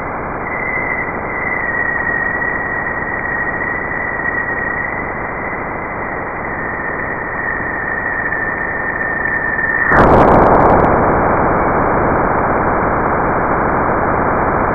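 Sonified space recording presented as the sound of Jupiter: dense static with a thin steady high tone that slides slightly lower, changing abruptly about ten seconds in to louder, rougher static without the tone.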